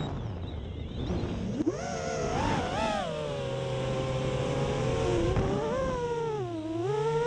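FPV racing quadcopter's brushless motors and propellers whining, the pitch following the throttle: low just after the start, rising sharply, holding fairly steady, then dipping and climbing again near the end. A short click about a second and a half in.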